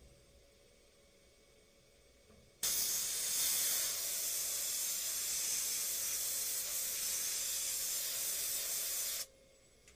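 Compressed-air blow gun hissing as it blasts coolant and chips off a freshly milled 6061 aluminium part. The blast starts abruptly about two and a half seconds in, holds steady, and cuts off sharply near the end.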